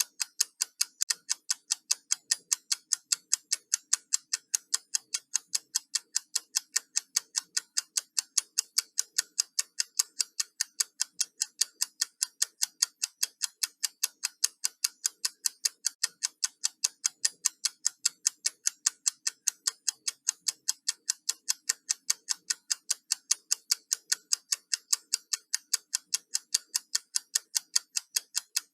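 Countdown timer ticking: crisp, sharp clock ticks at an even, quick pace, several a second, without pause.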